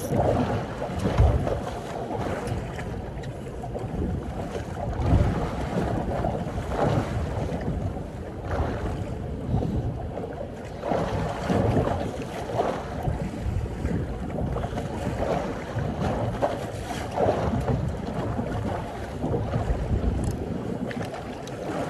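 Wind buffeting the phone's microphone in irregular low gusts, with water slapping against the hull of a small boat.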